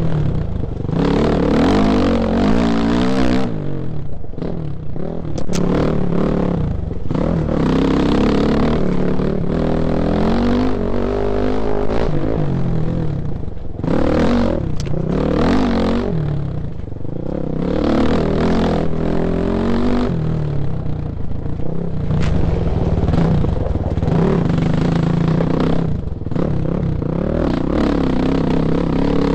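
Honda off-road motorcycle engine revving up and dropping back over and over as it races along a rocky dirt trail, with stones clattering under the tyres.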